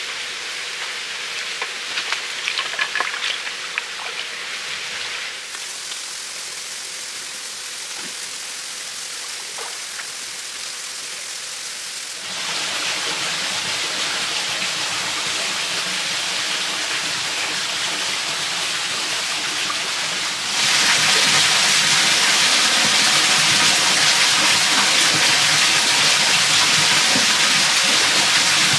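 Forest stream running over rocks: a steady rushing hiss of water that gets louder suddenly twice. A few light knocks sound in the first few seconds.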